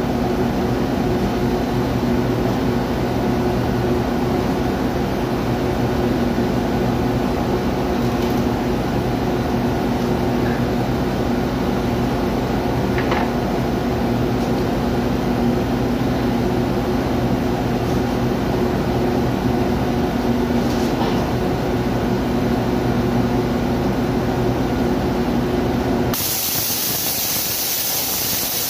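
Steady hum of running machinery with a fixed pitch. Near the end the hum cuts out and a loud hiss, like escaping air, takes over for about three seconds.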